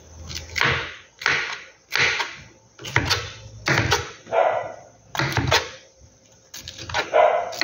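Kitchen knife chopping pineapple into small cubes on a plastic cutting board: the blade knocks against the board about a dozen times, one or two strikes a second.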